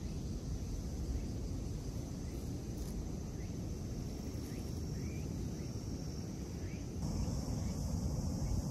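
Outdoor ambience: a steady high trill of insects over a low, even rumble, with faint short rising chirps every half second or so in the middle. The rumble grows a little louder near the end.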